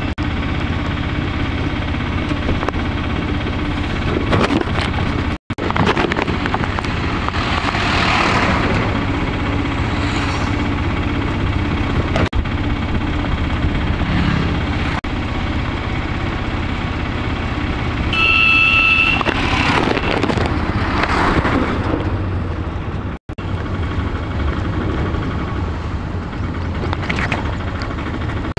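Auto-rickshaw engine running steadily on the move, with wind and road noise heard from inside the open cab. A vehicle horn beeps once, briefly, about two-thirds of the way through, and the sound drops out for an instant twice.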